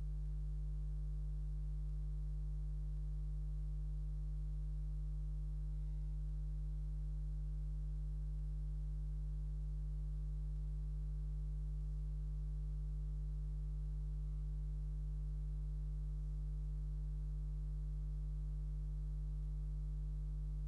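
Steady low electrical hum with a faint buzz above it, unchanging throughout: mains hum on the soundtrack of a silent film transfer, with no other sound.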